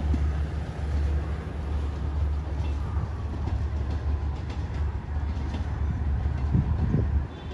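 Passenger train hauled by a D19E diesel-electric locomotive pulling away down the track: a steady low rumble with faint clicks of the wheels on the rails.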